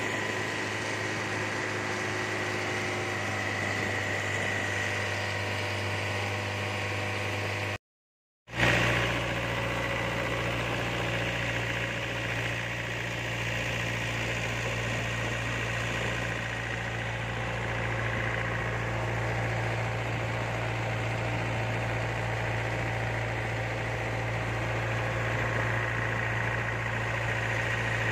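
Motorboat engine running steadily under way, with water and wind noise over it. The sound drops out completely for a moment about eight seconds in.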